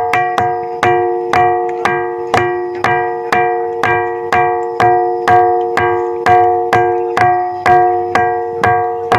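Ringing rock (a lithophone boulder) struck again and again, about two strikes a second, each strike giving a bell-like ring of several tones that fades into the next.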